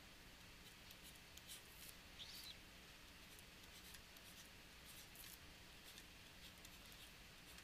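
Near silence, with faint, scattered scratching strokes of a pen drawing on a writing surface.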